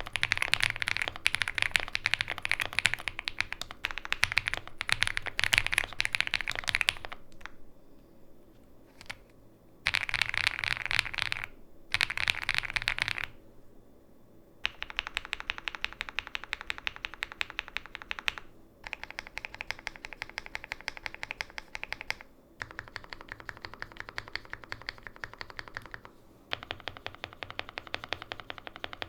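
Typing on a Heracles 80 mechanical keyboard with factory-lubed KFA Laughing Gas N20 switches and GMK keycaps: rapid key clacks in bursts. Fast typing for the first seven seconds gives way to a pause of about three seconds and two short bursts. From about halfway, long even runs of keystrokes follow with brief gaps between them, sounding duller than the opening typing.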